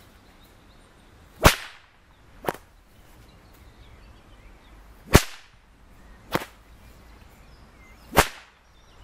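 Whip cracking three times, about three seconds apart, each sharp crack followed about a second later by a fainter one.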